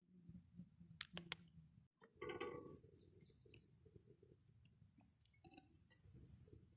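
Faint scattered clicks and knocks, with a brief high hiss about six seconds in.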